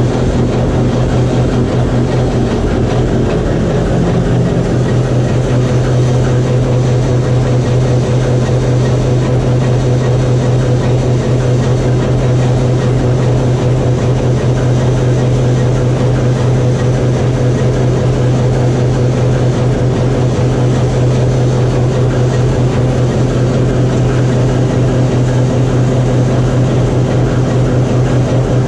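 A TEM2UM shunting locomotive's diesel engine running steadily under load, a loud, even drone with a strong low hum, heard from inside the locomotive's radiator cooling chamber.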